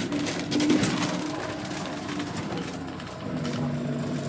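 Car engine and road noise heard from inside the cabin as the car drives slowly; the engine note shifts about three seconds in.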